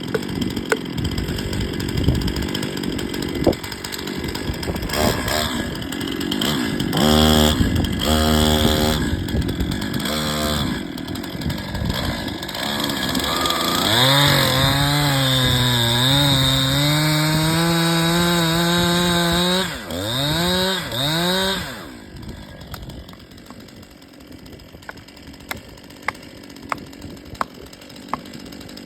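Two-stroke chainsaw cutting into a tree trunk during a felling cut. It is held at high revs through a long cut in the middle, blipped up and down twice, then let back to a low idle about 22 seconds in.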